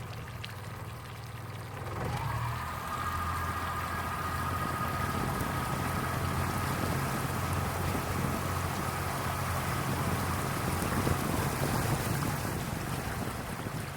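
Boat's outboard motor speeding up about two seconds in as the throttle is opened, then running steadily under way, with water rushing along the hull.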